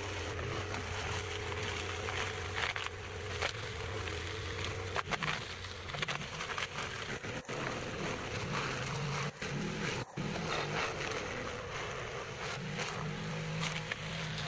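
A small engine drones steadily, its pitch shifting about halfway through, while a long-handled rake drags and rustles through cut grass and weeds.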